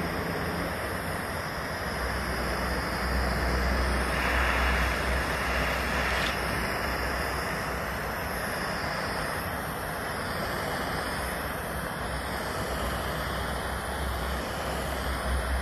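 Hand-held propane torch running with a steady hiss as its flame scorches wooden boards, a little louder for a few seconds around four seconds in, with a low rumble underneath.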